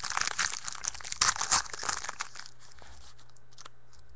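Plastic card-pack wrapping crinkling and tearing as a pack of trading cards is opened, with dense crackling for about two seconds that thins to a few scattered crackles and stops near the end.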